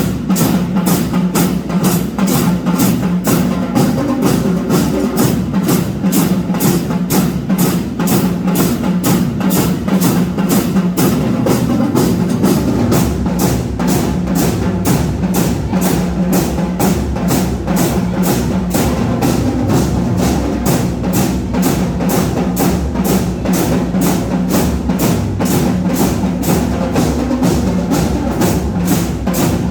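Marching band drum line keeping a fast, steady beat of about three strikes a second, over sustained pitched notes from the band's melody instruments.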